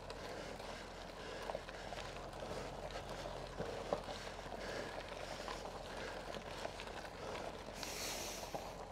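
Faint sounds of a Bulls Grinder Evo Lite electric gravel bike being pedalled uphill with its motor switched off: low tyre and drivetrain noise with scattered light ticks, and a brief hiss near the end.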